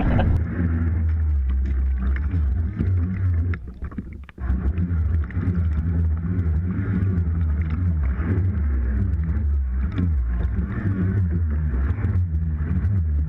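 Choppy water sloshing and splashing over a waterproof action camera held at the waterline beside a boat hull: a muffled low rumble with small splashes. The sound drops away briefly about four seconds in, then comes back.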